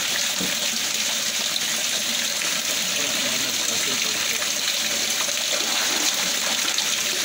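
Water running steadily in a shallow concrete hatchery tank, an even rushing hiss with no break.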